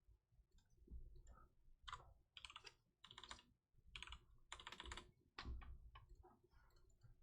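Faint, irregular clicking and tapping, a quick run of small clicks with short gaps, close to silence.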